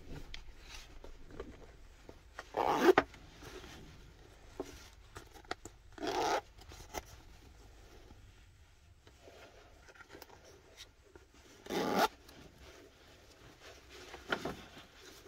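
Zipper on a BabyBjörn One Air mesh baby carrier being pulled in three short, loud runs, then a fainter one near the end, with the mesh fabric being handled in between.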